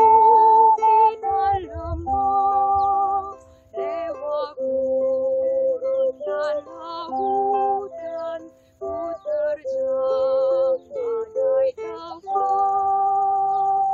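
A woman singing a slow, gentle song with her voice wavering on held notes, accompanied by a strummed ukulele and a small wind instrument, in phrases with brief pauses between them.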